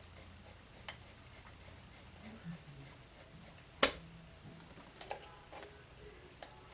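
Scattered small clicks and taps of hand tools and metal parts while an RC crawler's suspension is taken apart, with one sharp, loud click about four seconds in and a few lighter ones after it.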